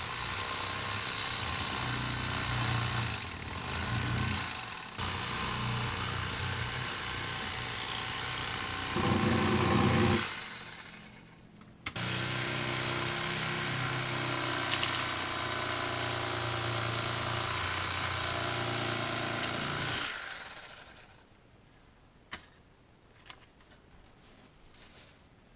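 Rapala electric fillet knife running in two long runs: about ten seconds, a brief stop, then about eight seconds more before it is switched off.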